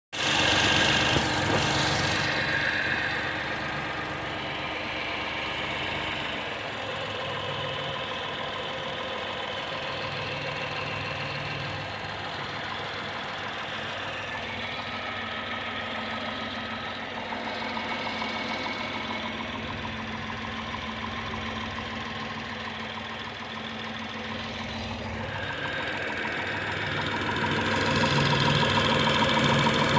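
Tata Tiago's 1.2-litre three-cylinder petrol engine running with a knocking sound, a fault that came on suddenly at about 2,900 km. It is louder for the first couple of seconds and again near the end.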